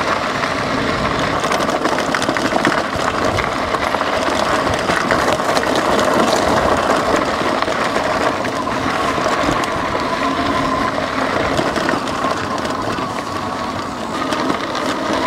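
Lectric XP 3.0 e-bike riding a bumpy dirt trail downhill: steady tyre noise over the dirt and gravel, with rattling from the bike over the bumps and a faint wavering whine.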